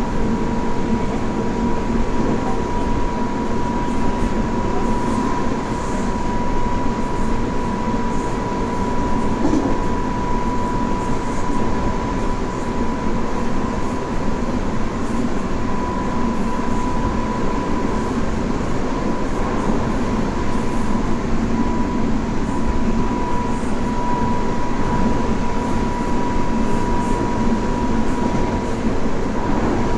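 Tobu 9050 series electric train running at steady speed: a continuous rumble of wheels on rail with a steady, even-pitched whine over it.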